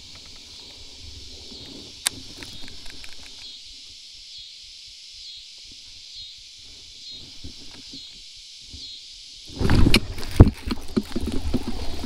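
Baitcasting rod and reel being pitched: near the end a burst of low handling thumps and a sharp click as the bait goes out and plops into the water, followed by a run of small clicks from the reel. Under it runs a steady high insect drone with a faint even pulse.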